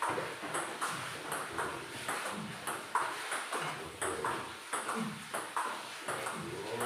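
Table tennis rally: the ball clicking off the paddles and bouncing on the table in a quick, even back-and-forth, about two hits a second.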